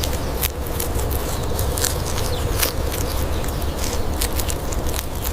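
Footsteps walking on an outdoor path, irregular steps and small clicks over a steady low rumble.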